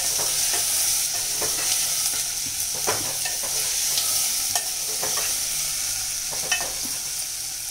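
Chopped onions sizzling in hot oil in a metal pot while a steel spoon stirs them, clinking and scraping against the pot now and then.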